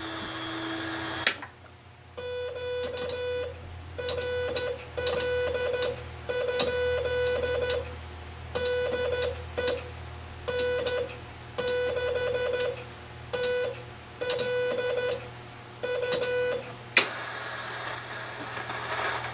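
Morse code sent by hand on a straight key through a Johnson Navigator CW transmitter, heard as a keyed tone of about 500 Hz in dots and dashes. A sharp click comes before the keying starts and another as it stops, after which the receiver's band hiss comes up.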